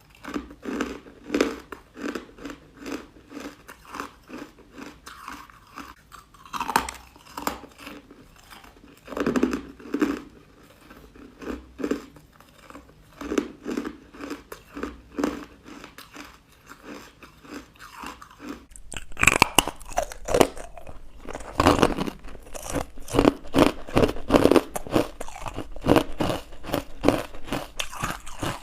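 Close-up chewing of chalky, crunchy white ice bites, with regular crunching strokes about once or twice a second. About two-thirds of the way through the crunching turns louder and comes faster, as if on a fresh mouthful.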